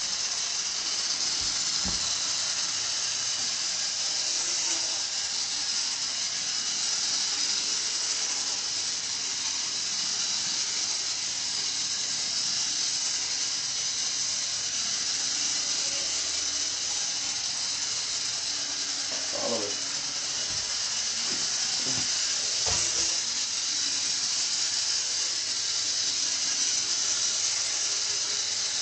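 Toy forklift's small electric motor and gears whirring steadily as it drives along, a thin even hiss-like whir.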